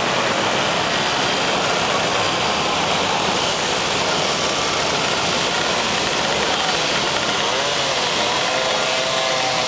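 A pack of mopeds riding and idling together, their small two-stroke engines making a steady buzzing din, with one engine's note rising and falling near the end.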